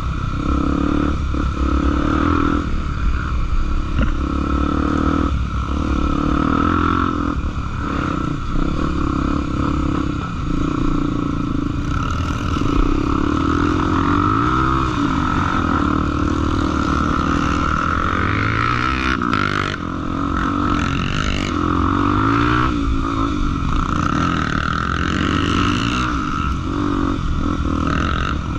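Trail motorcycle engine running continuously, revving up and down several times in the second half, with rattling and scraping over rough ground.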